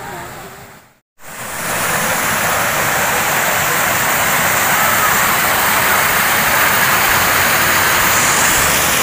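Loud, steady rushing noise of flowing water, starting abruptly about a second in after a moment of silence.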